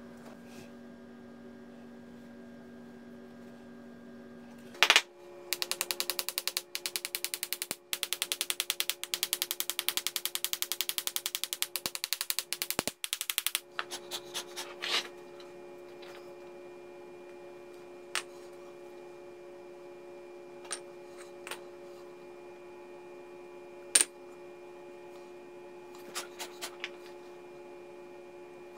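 Rapid, evenly spaced tapping on a sand mould for about eight seconds, rapping the coin patterns loose so they lift cleanly from the sand. It is followed by a few scattered single clicks, over a steady electrical hum.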